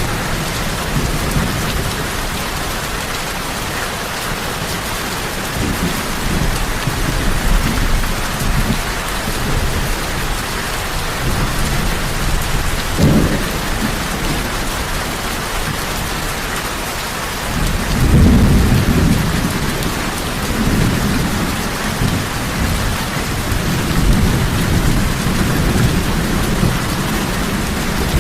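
Heavy rain falling steadily with rolling thunder: a short crack about halfway through, then a longer, louder rumble that rolls on to the end.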